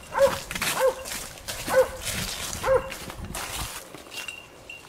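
Hunting dog barking, four barks roughly a second apart, stopping after about three seconds. Brush and branches rustle between the barks.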